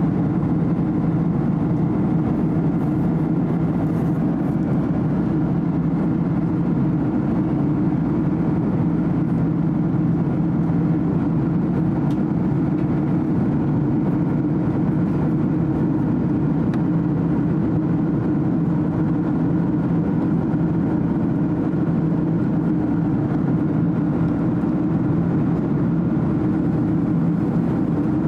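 Boeing 767-300 cabin in flight, heard from a window seat beside the engine: the steady drone of the turbofan engine and rushing air, with an even low hum and no change in pitch or level.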